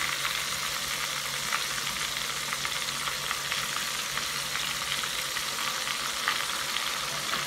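Flour-coated chicken deep-frying in hot oil in a stainless steel pan: a steady sizzle with many small crackles.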